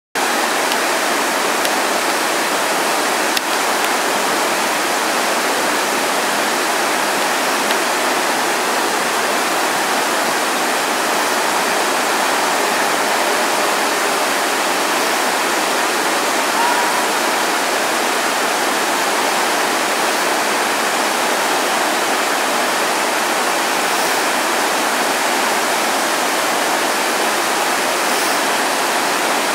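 Steady, continuous rush of the 9/11 Memorial's waterfall, water pouring down the walls into the reflecting pool.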